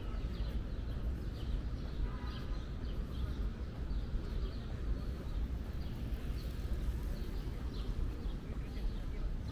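Park ambience: many short bird chirps over a steady low rumble, with faint distant voices about two seconds in.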